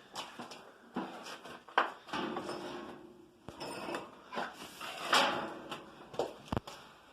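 Metal parts of an old furnace being worked loose and handled during dismantling: irregular clanks, knocks and scraping, with a brief ringing note about two seconds in and a sharp knock near the end.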